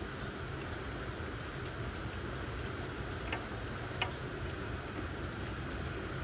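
Steady rain from a thundershower, a constant hiss over a low rumble, with two sharp drips or taps a little over three and four seconds in.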